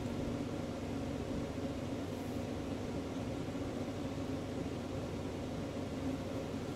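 Steady mechanical hum and hiss of room background noise, an even drone with no distinct events.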